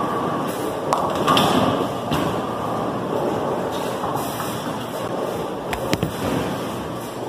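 Bowling-alley noise: a steady rumble of bowling balls rolling down the lanes, with a few sharp knocks, two close together about six seconds in.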